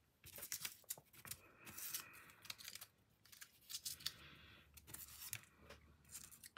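Small paper name labels being handled and set down on a playmat: faint, scattered rustling and light taps of paper.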